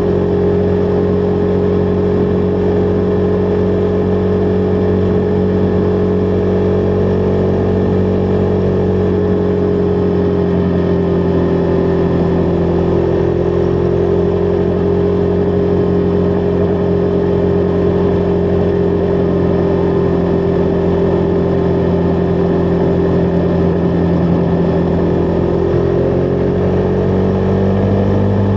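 Husqvarna Vitpilen 401's single-cylinder engine running at steady cruising revs, its pitch easing down slightly about a third of the way in and climbing again near the end.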